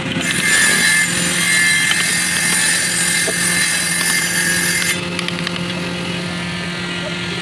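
A motor running steadily, with a louder high hiss and whine from just after the start until about five seconds in, over light scraping of a hand chisel cutting wood.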